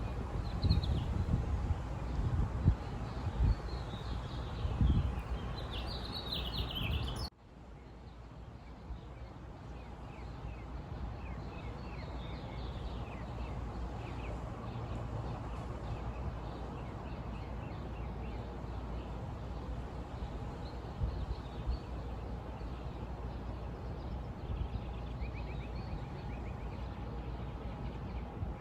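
Outdoor ambience of birds chirping faintly over a steady low rumbling background. About seven seconds in, the sound cuts abruptly to a quieter, steadier ambience with the same faint chirping.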